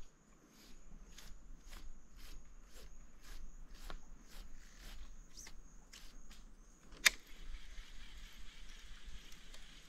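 Fishing line being pulled off a baitcasting reel's spool in a run of short tugs, about three a second, to clear a backlash (a bird's nest). One sharp click a little after seven seconds in.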